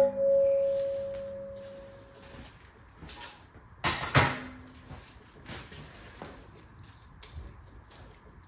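Metal tools and engine parts clinking and clanking during an engine teardown. A ringing metallic tone dies away over the first couple of seconds, light clicks follow, and a sharper clank about four seconds in rings briefly.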